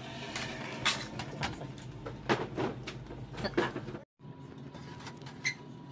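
Irregular knocks and clatters of handled objects, about half a dozen sharp hits over a steady background hum, broken by a sudden brief dropout just after four seconds in.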